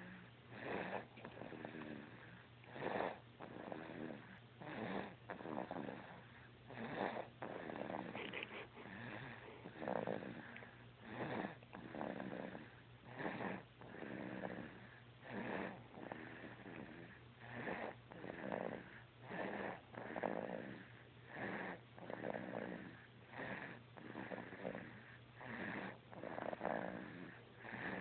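Snoring, with a snore roughly every one to two seconds in a steady rhythm.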